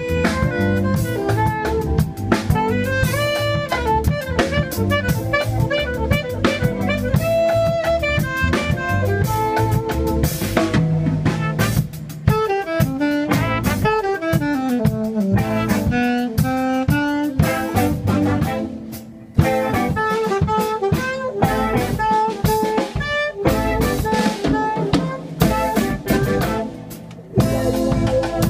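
Live Ethio-reggae band playing: a saxophone carries the melody over drum kit and electric bass, with keyboard. The groove drops out briefly twice, near the middle and near the end.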